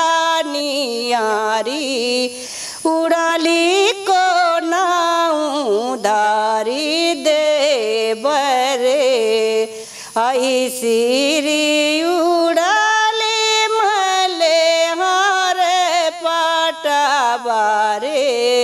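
A woman singing a Rana Tharu teej folk song solo and unaccompanied, holding long notes that bend up and down, with short pauses for breath.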